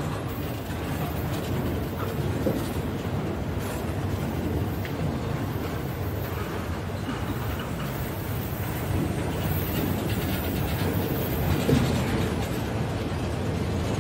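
Freight train of autorack cars rolling past, its steel wheels on the rails making a steady noise.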